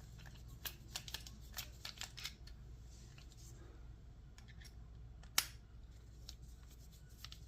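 Scattered light clicks and ticks of a screwdriver and small metal parts as a long screw is backed out of an aluminium padlock body, with one sharper click about five seconds in.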